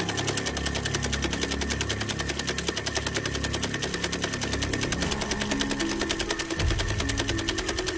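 Hydraulic-style breaker hammer on a Huina 1593 RC excavator chattering against ice: a rapid, even stream of small blows that runs without a break.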